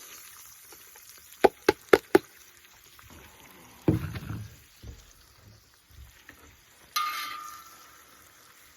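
Chopped peppers and onions going onto a hot discada's steel disc: four quick sharp knocks, a heavier thud, then near the end a sudden clatter with a brief metallic ring, over a faint sizzle of oil.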